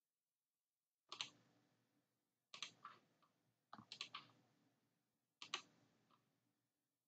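Computer mouse clicks: four short groups of two or three quick clicks, about a second and a half apart.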